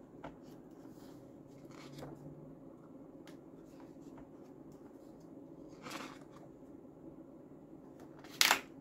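Pages of a hardcover photobook being turned by hand: a few soft paper swishes, then a louder, brief page rustle near the end.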